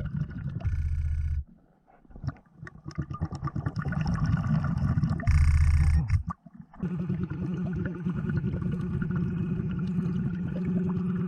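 Underwater sound of a diver breathing through a Blu3 Nemo hookah regulator, with a loud burst of exhaled bubbles about five seconds in. A steady low hum takes over in the second half.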